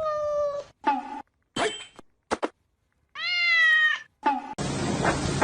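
A domestic cat meowing again and again: a long meow at the start, several short ones, and another long meow rising in pitch about three seconds in. Near the end the meowing cuts off abruptly and a steady hiss takes over.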